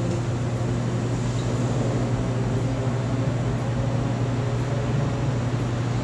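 Steady low mechanical hum with an even hiss behind it, unchanging throughout.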